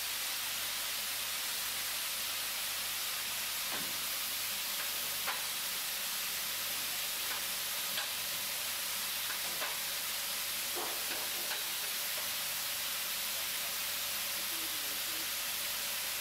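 A steady hiss, with a few faint clicks and knocks scattered through it.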